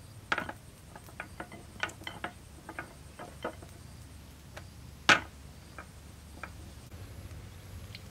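Light clinks and knocks of kitchen utensils and cookware, about fifteen scattered irregularly, with one sharper, louder knock about five seconds in.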